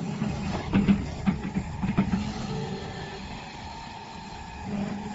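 Hyundai HX220L excavator's diesel engine running steadily, with a few short knocks in the first two seconds.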